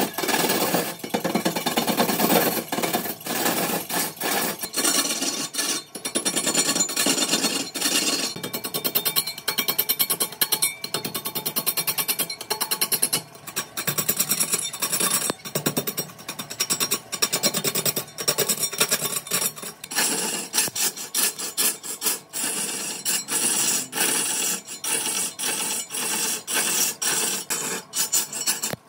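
A turning tool scraping and cutting into wood on a lathe: a rough rasping sound broken by many quick knocks, rising and falling in loudness.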